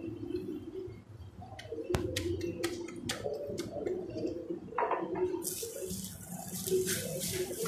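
A paratha is handled on a wooden board, with a sharp knock and a few light taps about two seconds in. It is then laid on a hot iron tawa, and a steady sizzle with crackles starts about five and a half seconds in.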